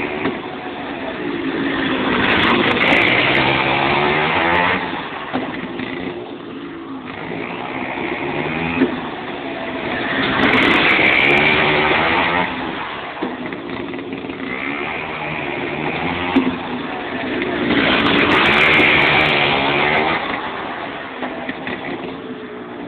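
100cc two-stroke kart engine revving as the kart laps a short track, its pitch rising and falling with the throttle. It swells loud as it passes close three times, about eight seconds apart, and fades between passes.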